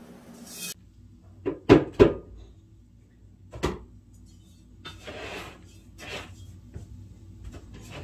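Hard knocks and clatter from cleaning cat litter boxes: three sharp knocks close together about a second and a half to two seconds in, another a little before four seconds, with brief rustling scrapes of litter between them.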